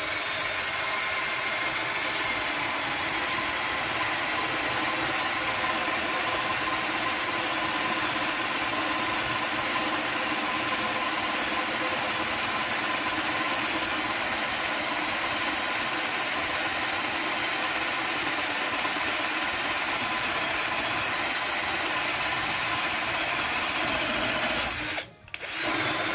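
Tramontina 10.8 V cordless drill-driver running steadily under load as a 16 mm spade bit bores into a rough wooden rafter. Near the end it stops briefly, then starts again for about a second.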